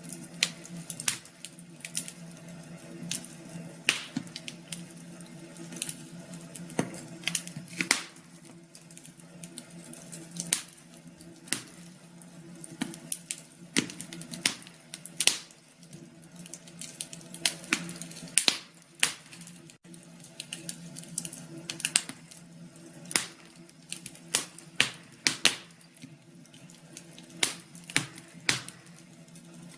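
Wood fire crackling: irregular sharp pops and snaps of varying loudness, several a second at times, over a faint steady low hum.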